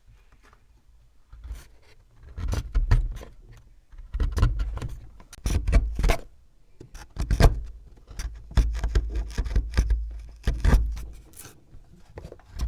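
A hand tool scraping and knocking against a hard surface in irregular strokes, each a short rasping scrape with a dull thump.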